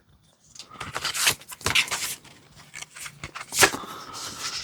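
Paper inserts and cards being handled and pulled from an envelope: irregular rustling and scraping, with a sharper click about three and a half seconds in.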